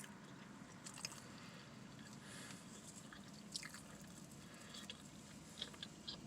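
Faint chewing of a sausage egg and cheese McMuffin, with a few small wet mouth clicks scattered through.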